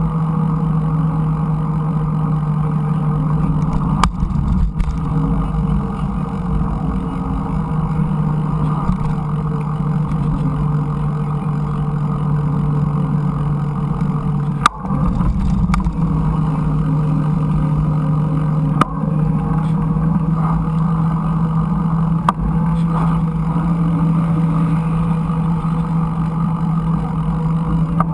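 Mountain bike riding noise picked up by an action camera: a steady low hum over a constant rumble, with a few sharp knocks along the way.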